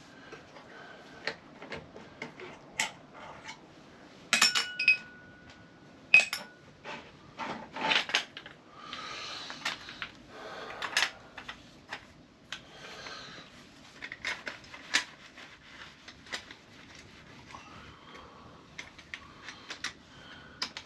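Metal hand tools and motorcycle parts clinking and knocking at irregular intervals; about four seconds in, one struck metal piece rings on for a second or so.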